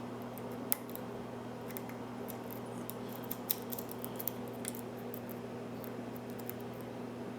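Lock pick and tension wrench working the pins of a pin-tumbler mortise cylinder, giving small, irregular metallic clicks and scrapes over a steady low hum.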